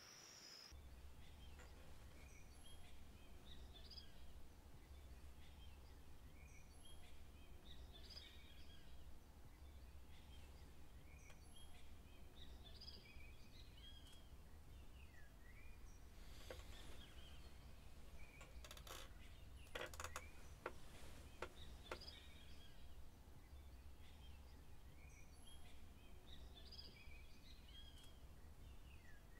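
Faint ambience of small birds chirping, short calls repeating on and off over a low steady hum, with a few sharp clicks past the middle.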